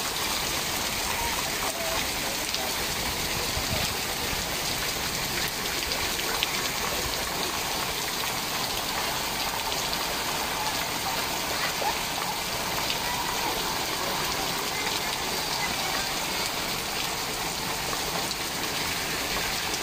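Heavy monsoon rain pouring steadily onto waterlogged ground and puddles.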